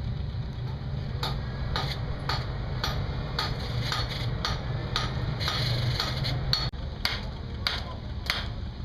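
Blacksmith's hammer striking hot iron on an anvil in a steady rhythm, about two blows a second, starting about a second in, each blow with a short ring. A steady low rumble runs underneath.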